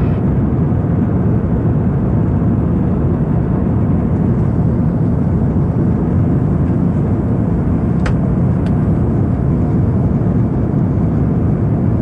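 Steady low rumble of airflow and engine noise inside the cabin of an Airbus A350-900 in flight, with two short clicks about eight seconds in.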